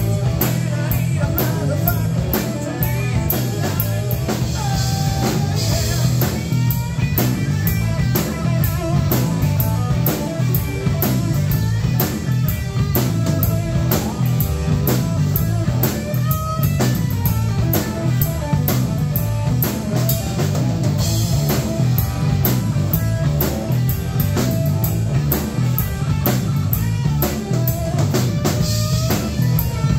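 Live rock band playing an instrumental stretch without vocals: electric guitar, electric bass and drum kit, with a steady beat on the cymbals.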